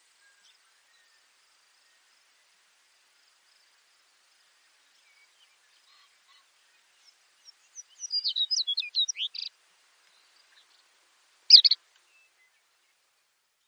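Baird's sparrow singing: a couple of soft lead-in notes, then a quick run of high notes lasting about a second and a half. A single short, loud burst comes about two seconds later, and faint high chirps sit in the background.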